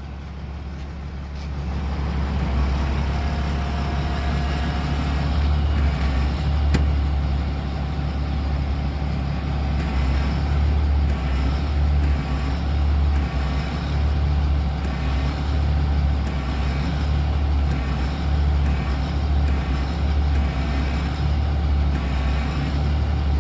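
A machine running steadily with a deep hum and a thin steady whine, with scattered light clicks over it.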